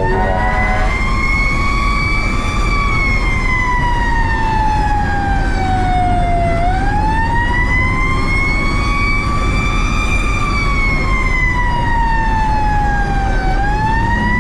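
Fire truck siren in a slow wail, its pitch rising and falling in long, even sweeps of about seven seconds each, over the steady low rumble of the truck's engine and road noise. It is the siren of a 2003 Pierce Dash truck running on an emergency response.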